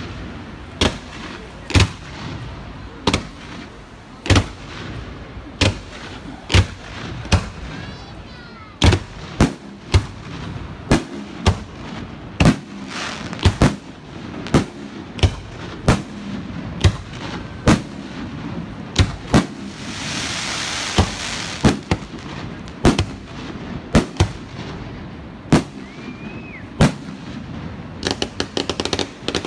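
Aerial fireworks display: shells bursting in a steady run of sharp bangs, about one a second, with a stretch of hiss about two-thirds of the way through and a quick run of small crackling pops near the end.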